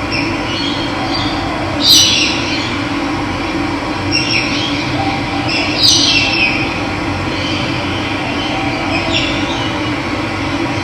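Running water flowing steadily, with a bird giving short falling calls over it about two, four, six and nine seconds in, the one near two seconds the loudest.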